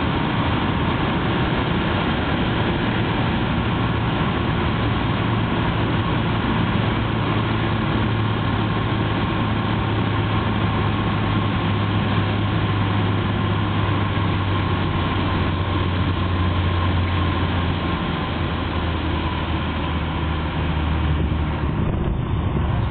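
Cabin noise of a Piper PA-32 light aircraft on landing: the six-cylinder piston engine and propeller give a steady low drone under rushing airflow. The drone sinks a little in pitch past the middle as power comes back.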